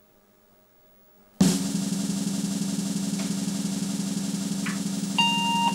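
IBM 5170 PC AT powering up: about a second and a half in, its fan and drives start all at once into a loud, steady whir with a low hum, with a couple of faint clicks. Near the end comes a single short beep from the PC speaker, the POST beep that signals the power-on self-test has passed.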